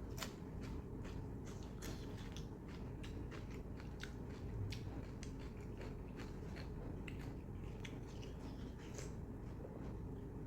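A person chewing and eating close to the microphone: frequent irregular wet mouth clicks and smacks of chewing food, over a steady low hum.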